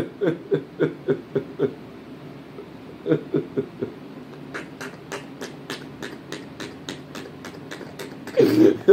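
A man laughing in short rhythmic bursts, about four a second, fading to quieter, sharper pulses midway, with a louder burst of laughter near the end.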